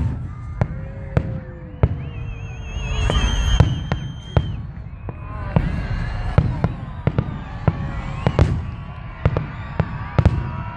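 Aerial fireworks shells bursting overhead: a string of sharp bangs and crackles coming several a second at times, over a low rumble.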